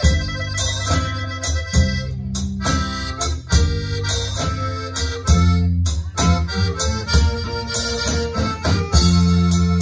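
Live band playing an instrumental passage: a saxophone lead over electronic keyboard, guitars, bass and drums, with a steady beat.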